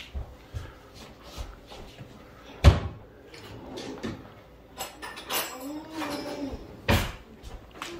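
Kitchen knocks and clatter: one sharp knock about two and a half seconds in and another near the end, with softer taps between. A child's voice is heard briefly in between the knocks.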